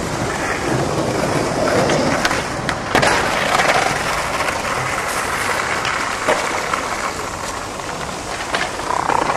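Skateboard wheels rolling over stone paving with a steady grinding hiss, broken by several sharp clacks of the board hitting the ground.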